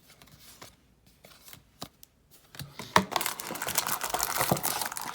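Soft clicks of cards being handled, then about three seconds in a booster pack wrapper being torn open and crinkled loudly.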